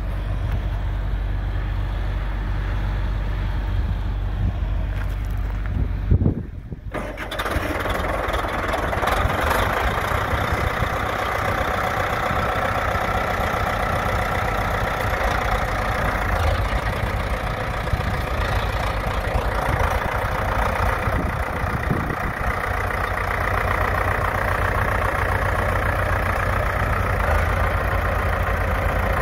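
Case 870 Agri King tractor engine running steadily. About six seconds in there is a brief loud jump and short drop-out, after which the engine sounds fuller as the tractor is driven.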